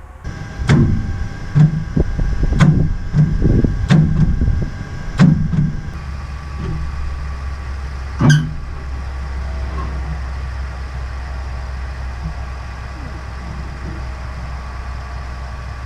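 Sawmill engine being cranked against a stuck motor: five or six heavy clunks about a second apart, then a steady low hum with a single sharp click about eight seconds in.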